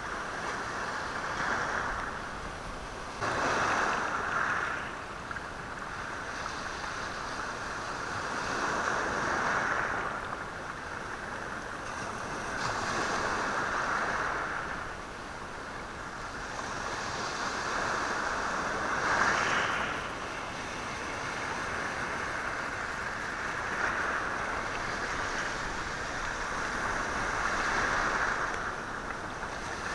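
Sea waves washing in over a stony shore, the stones rattling in the wash. The surf swells and falls back every four to six seconds.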